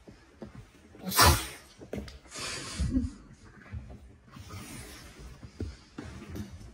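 Border Collie and Jack Russell terrier puppies play-fighting: irregular breathy huffs and scuffling of bodies against fabric, with the loudest huff about a second in.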